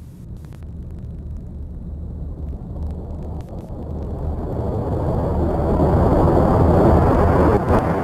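A low, rumbling roar from the film's soundtrack that swells steadily louder.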